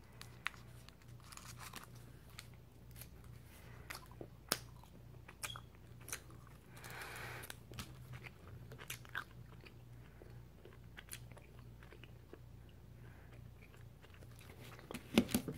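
Faint small clicks and crinkles of a stick of Trident gum being unwrapped from its paper and foil wrapper, with a sniff about seven seconds in, over a low steady hum.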